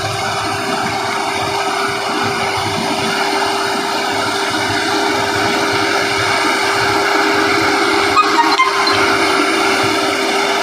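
Combine harvester running steadily under load, with a few light metallic clinks about eight seconds in.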